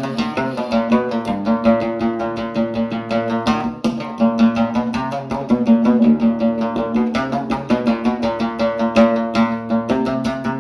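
Background music: a plucked string instrument played in fast, rapid notes over a held low note.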